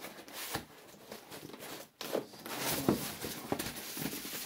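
Cardboard box being handled and opened from the side: rustling, scraping and light knocks, quieter at first and louder from about two seconds in.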